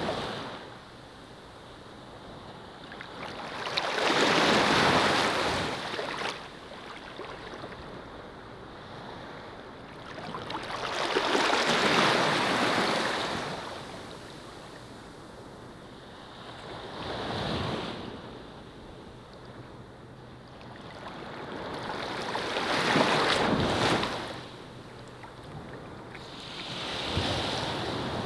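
Gentle surf washing onto a sandy beach: five slow swells of wave noise, each rising and falling over a few seconds, with quieter stretches between them.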